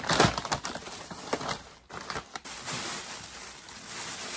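A brown paper mailer and a plastic garment bag rustling and crinkling as a parcel is opened. A dense burst of paper crackling comes in the first half second, followed by scattered crinkles and a steadier plastic rustle near the end.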